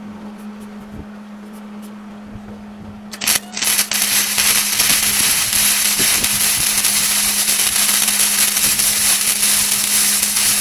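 Stick welding arc on a steel trailer hitch: about three seconds in the rod sputters in a couple of short strikes, then the arc catches and burns with a steady, loud crackling hiss.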